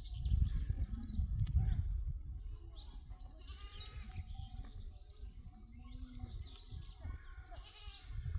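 Sheep or goats of a flock bleating: a couple of calls about three seconds in and more near the end, over a low rumbling noise in the first two seconds.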